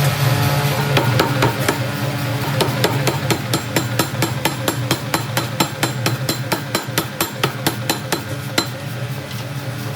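Hammer blows on metal during forging, evenly spaced and coming quickly, several a second, over a steady hum. The blows begin about a second in and thin out near the end.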